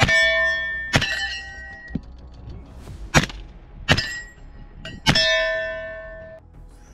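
Suppressed 300 Blackout rifle, fitted with a 3D-printed carbon-fibre nylon (PA6-CF) suppressor, fired about five or six times at roughly one-second intervals. Several of the shots are followed by steel plate targets ringing out and fading over about a second.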